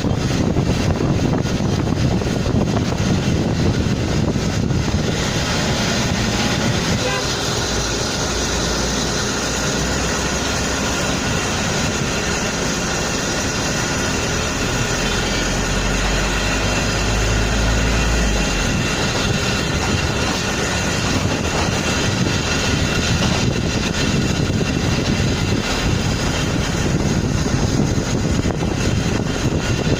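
Steady mixed drone of vehicle engines and running machinery, with a deeper low hum that swells for a few seconds around the middle.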